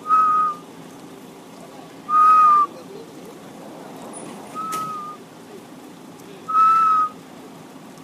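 A clear whistled note held at one pitch for about half a second, repeated four times roughly every two seconds. The third note is fainter, with a sharp click near its start.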